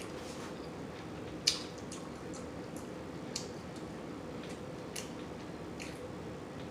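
Quiet room tone with a steady faint hum and a few soft, brief clicks.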